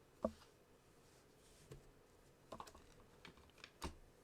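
A few light clicks and taps from handling the packaging and plastic case of a screwdriver kit during unboxing, the sharpest about a quarter second in.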